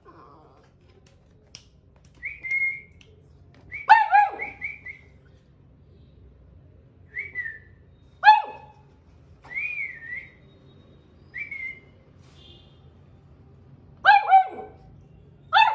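Beagle puppy whining in high-pitched squeals. A few loud, short cries drop in pitch, and softer, higher whimpers come in between.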